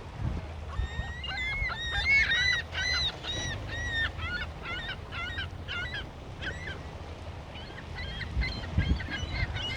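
A flock of water birds calling: many short, arched, high calls overlapping in quick succession, busiest in the first few seconds and thinning out later. Low wind rumble on the microphone runs underneath.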